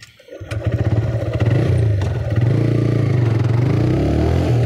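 Motorcycle engine coming in about half a second in and revving up as the bike gets under way, then running steadily.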